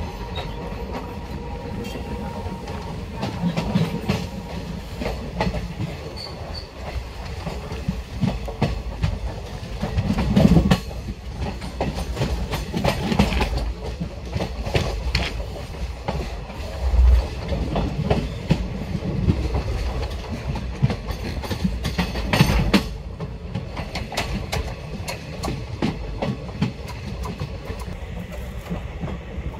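Moving passenger train of the Kanchanjunga Express heard from an open coach door: a steady running rumble with the wheels clattering over rail joints in repeated clicks, louder in a few surges.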